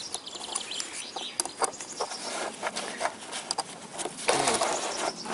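Light metallic clicks and clatter as a steel vernier caliper and a roller timing chain are handled against a camshaft sprocket, with a louder rattle about four seconds in. Birds chirp in the background.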